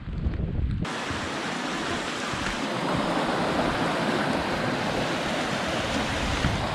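Steady rush of fast-flowing water, a stream or waterfall close by. It cuts in suddenly about a second in, replacing low wind rumble on the microphone.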